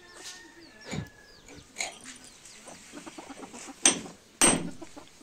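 Hammer striking a steel hand chisel to chip concrete from a pillar: four sharp blows, the last two loudest. Hens cluck in the background.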